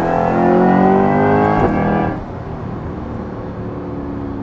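Corvette C8 E-Ray's 6.2-litre V8 through a titanium valved exhaust, heard from inside the cabin: pulling hard with rising pitch, with a sharp crack on an upshift about one and a half seconds in. Just after two seconds the throttle comes off and the engine falls to a quieter, steady cruise.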